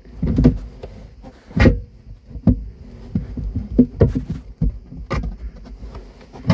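Polypropylene plastic filter parts knocking and scraping as they are lifted and fitted together by hand: several uneven knocks and clunks, the loudest about a second and a half in, with low rumbling handling noise between them.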